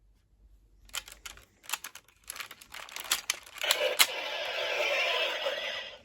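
Plastic clicks and knocks from a Siren Striker toy vehicle being handled. About four seconds in, its small speaker starts a siren sound effect.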